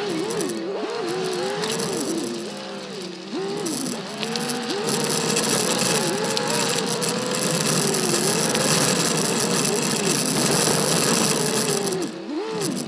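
Subaru Forester's turbocharged flat-four engine pulling along a rough dirt trail, its pitch rising and falling continually with the throttle, over rattling and wind noise picked up by the camera on the roof basket.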